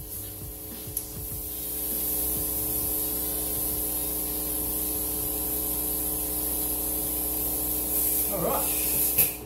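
Compressed air hissing steadily from a blow gun into the handlebar, blowing through the bar so a new rubber hand grip floats on a cushion of air and slides on. The hiss starts a second or two in and cuts off just before the end.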